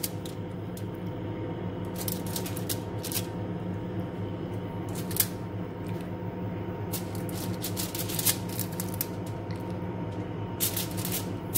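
Aluminium foil crinkling and bamboo skewers clicking as skewers of marinated chicken are laid on a foil-lined baking tray, in scattered short bursts, over a steady low hum.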